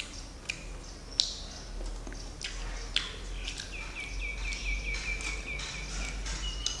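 Scattered light clicks and mouth sounds of a man eating fruit pulled off toothpicks. About halfway through comes a rapid run of high chirps, about eight a second, lasting some two and a half seconds.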